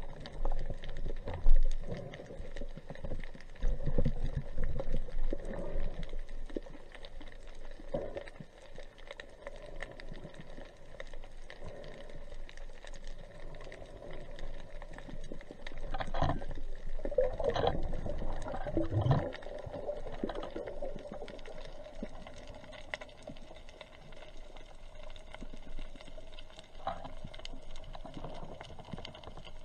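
Underwater sound as heard by a diver's camera: muffled water noise with a steady low hum and many small clicks and crackles, swelling into louder rushing stretches about sixteen to nineteen seconds in.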